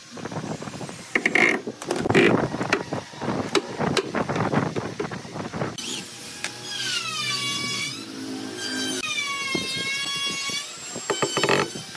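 Knocks and clatter of handling a cabinet door and hinge, then an electric drill driving screws into a hinge, its motor whining in two long runs with the pitch rising and falling as the trigger is squeezed and eased.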